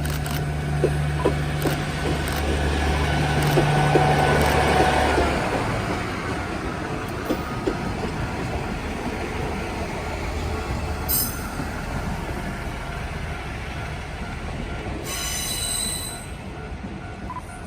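Two-car KiHa 47/48 diesel railcar train passing: a low diesel engine drone and wheels clicking over rail joints grow to their loudest about four seconds in. The engine tone drops in pitch and cuts out as the train goes by, leaving fading wheel-on-rail rumble. Brief high-pitched squeals come about eleven seconds in and again near the end.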